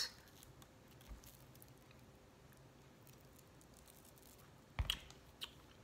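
Quiet room tone with a faint tick about a second in and a short, sharper click a little before the five-second mark, followed by a smaller one.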